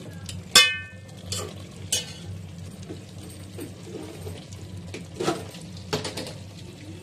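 A perforated metal spoon stirring chicken frying with spices in an aluminium pot, scraping and clanking against the pot's sides with a light sizzle. The loudest clank, about half a second in, rings briefly, and a few smaller knocks follow. A steady low hum runs underneath.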